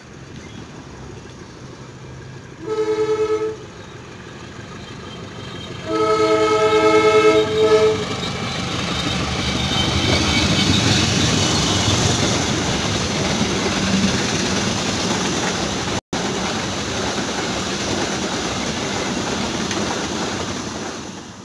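Indonesian long-distance passenger train's locomotive horn sounding a multi-tone chord twice as it approaches, a short blast and then a longer one of about two seconds. The train then runs past on the rails, its noise building and holding steady as the coaches go by.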